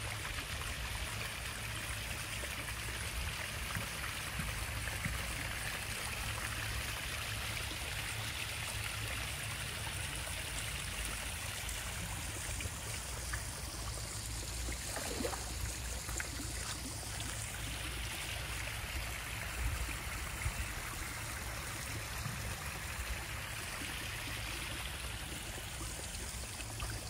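Water trickling and splashing steadily from a backyard koi pond's waterfall.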